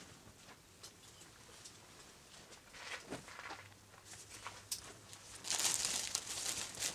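Soft taps and handling noises as a small lump of clay is pressed and shaped on a wooden block, then, about five and a half seconds in, a loud rustle of a bag being handled for about a second and a half.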